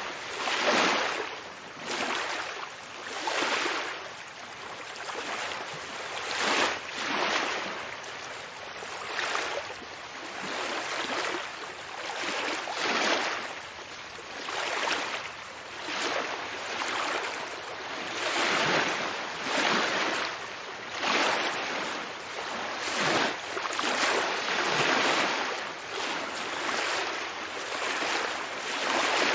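Ocean waves washing in, a rushing surf noise that swells and falls back about every two seconds.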